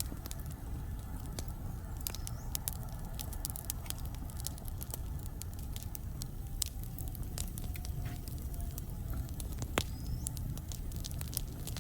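Wood fire burning in a fireplace: a steady low rumble of flames with frequent sharp crackles and pops from the burning logs. A faint thin whistle comes from the wood midway, and one louder pop comes near the end.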